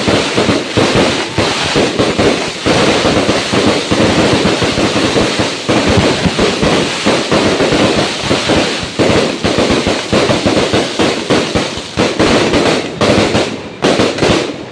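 Fireworks going off in a loud, rapid, continuous barrage of bangs and crackles, thinning out slightly near the end.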